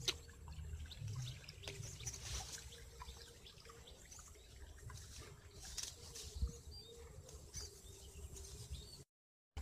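Rustling and brushing of grass and weeds with footsteps as someone walks along a rice-paddy bank, with scattered light clicks and faint bird chirps over a faint steady hum. The sound cuts out completely shortly before the end.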